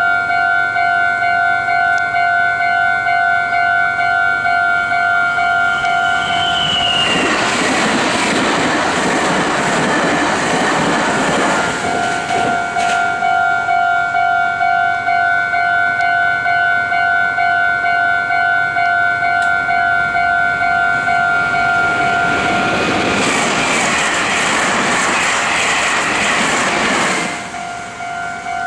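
A Japanese level-crossing alarm rings its steady, evenly pulsing two-tone clang throughout. Two Meitetsu electric trains pass in turn, a 3100+3300 series express and a 2200 series limited express. Each gives about five seconds of loud wheel-and-rail noise, the first about a quarter of the way in and the second near the end. A short high horn note sounds just as the first train arrives.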